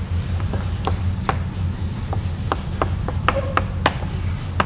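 A scattering of short, sharp clicks and taps, about a dozen, over a steady low hum.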